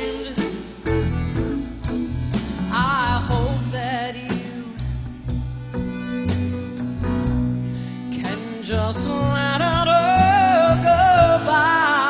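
Live band music with a woman singing long, wavering notes with heavy vibrato and no recognisable words, over a bass line and a steady beat.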